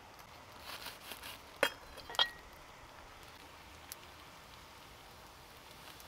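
Plastic bags and bottles being handled: a short rustling of plastic, then two sharp knocks about half a second apart, the second with a brief ringing tone, and a faint tick a little later.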